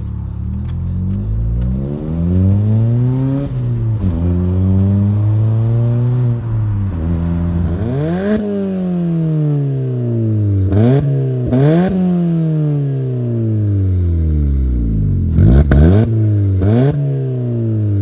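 Vauxhall Astra H 1.6 engine heard through a Sportex cat-back exhaust, its revs climbing and falling back again and again as the car is driven. A few short sharp cracks come in the second half.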